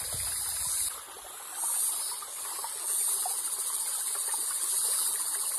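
A stream running over rocks, with a loud high insect buzz on top that drops away briefly about a second in and swells back.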